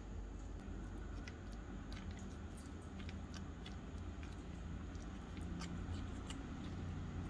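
Small metal spoon stirring a thick, wet spice paste in a tiny glass bowl, with faint irregular clicks and taps of the spoon against the glass, over a steady low hum.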